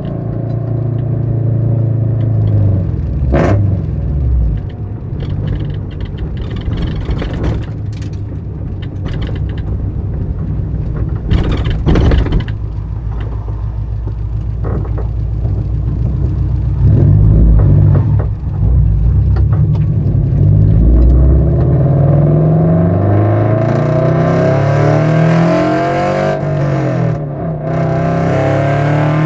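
Toyota GR86's flat-four engine breathing through an unequal-length header, 3-inch front pipe and HKS cat-back exhaust, its pitch rising and falling several times as the revs go up and down, and climbing strongly near the end. A few sharp clicks stand out, notably about three seconds in and again about twelve seconds in.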